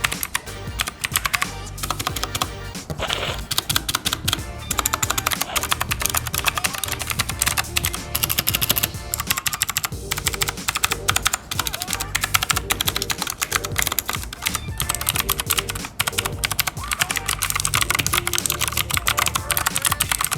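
Ajazz i610t 60% mechanical keyboard with blue Huano switches being typed on quickly and continuously, a steady stream of sharp clicky keystrokes.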